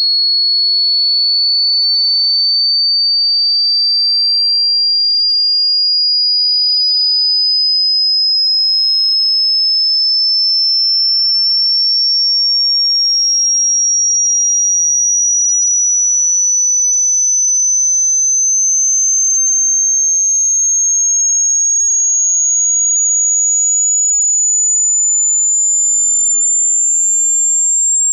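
A single pure electronic test tone, very high-pitched, gliding slowly and steadily upward in pitch at an even loudness: a hearing-test frequency sweep.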